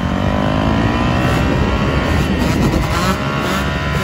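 Two-stroke dirt bike engine held on the throttle through a wheelie, its pitch climbing steadily for about two seconds, then rising and falling in several quick revs near the end.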